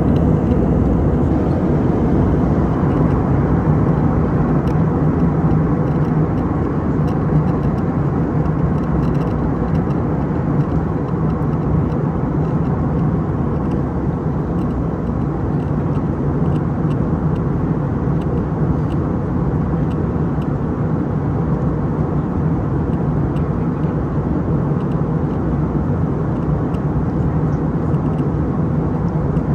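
Steady cabin noise of an Airbus A319 in flight on approach: a rush of airflow with a low engine drone, easing slightly about ten seconds in.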